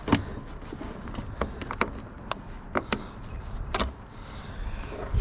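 Scattered sharp clicks and light knocks, about eight over several seconds, from car parts and hand tools being handled during disassembly.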